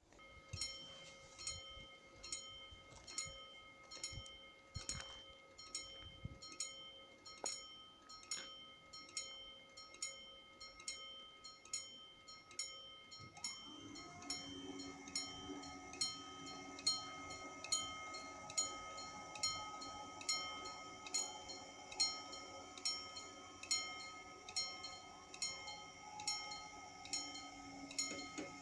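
Italian level-crossing warning bell ringing in a steady rhythm, a little under one strike a second, as the crossing closes. About 13 seconds in, a steady low hum joins it while the barrier arms lower.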